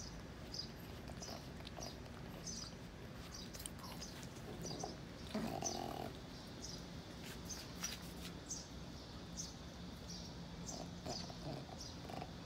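Faint small-bird chirps repeating every half second to a second. About five seconds in there is one short, low, pitched animal sound.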